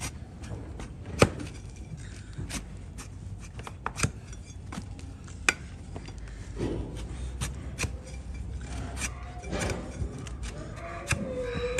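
Flat hoof-trimming blade paring horn from a donkey's hoof, with irregular crisp cutting clicks and scrapes. The sharpest cuts come about a second in and twice more a few seconds later.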